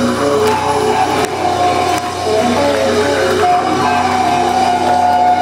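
Rock band playing live: a melody of held notes over guitar and drums.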